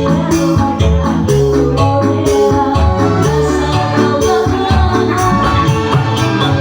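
Band music with a steady beat: held melodic notes over bass, with percussion keeping the rhythm.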